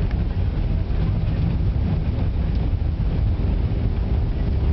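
Steady low rumble inside an Airbus A319 cabin as the jet rolls along the runway after touchdown: engine and airflow noise, with a faint steady hum coming in about three seconds in.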